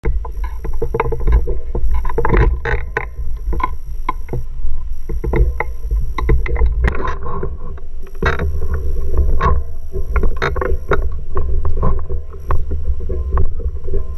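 Manual wheelchair rolling over cracked, uneven concrete paving: a loud, steady rumble from the wheels, with frequent sharp clicks and rattles from the chair's frame and casters.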